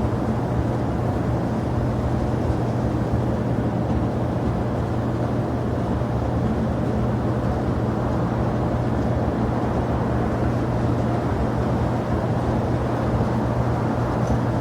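Steady low rumble of jet aircraft engines at an airport, even in level throughout with no rise or fall.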